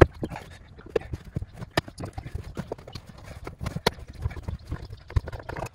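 Cargo-area floor carpet and trim panels of a Porsche Macan being lifted and flipped forward: rustling with many irregular knocks and taps.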